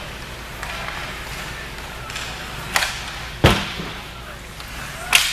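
Ice hockey play: three sharp knocks of sticks, puck and boards. The middle one, a little after halfway, is the loudest, a heavy thud. Faint voices sound in the rink.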